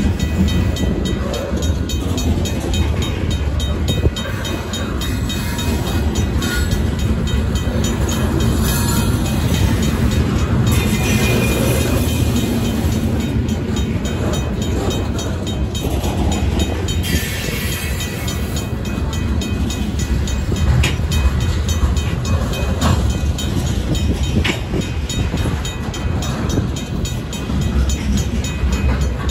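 Loaded freight cars rolling slowly past at close range: a steady heavy rumble with now-and-then wheel clacks over the crossing, while the grade crossing's RACO mechanical bell rings rapidly.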